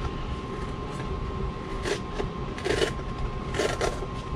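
Three short scraping rubs about a second apart, from fingers working at a stuck insole inside a leather dress shoe. They sit over a steady low hum with a thin steady tone.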